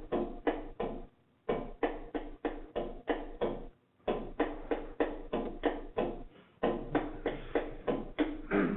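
Hawaiian pahu, the hula drum carved from coconut wood with a sharkskin head, beaten in a steady rhythm of about three to four strokes a second. The drumming breaks off briefly three times.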